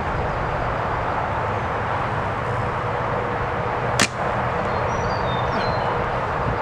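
Wind buffeting the microphone steadily, with a single sharp snap of an arrow shot from a traditional bow about four seconds in.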